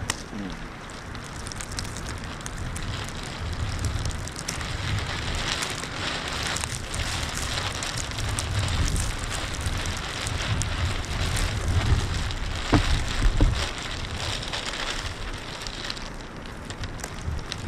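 Winter storm wind buffeting the microphone in rumbling gusts over a steady hiss with many small crackles, the strongest gusts about two-thirds of the way through.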